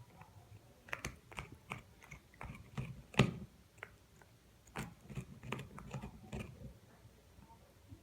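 Corgi puppy gnawing on an antler, teeth clicking and scraping against the hard antler in irregular bursts, with the loudest crack a little past three seconds in. The gnawing stops about a second and a half before the end.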